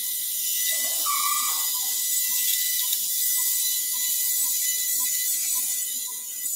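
High-speed surgical burr running with a steady high whine and hiss as it grinds through vertebral bone to deepen a ventral slot in a dog's neck.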